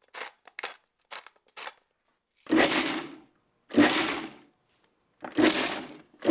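A pepper mill crunches in a few quick twists. Then a food processor is pulsed in three short bursts about a second apart, chopping a chunky red pepper and parsley mixture.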